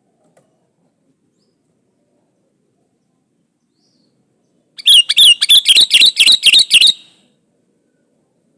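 Sooty-headed bulbul (kutilang) singing one fast, loud phrase of about ten wavy whistled notes, lasting about two seconds just past the middle.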